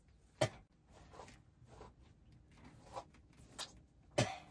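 A few brief handling noises, small clicks and rustles a second or so apart, in a small room; the loudest comes near the end.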